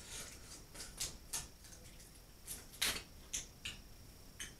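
Snow crab shell being cracked and pulled apart by hand: a run of short, sharp cracks and snaps, the loudest about three seconds in.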